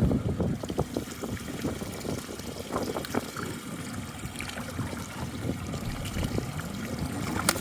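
Water splashing and trickling beside a boat, with irregular small splashes and knocks.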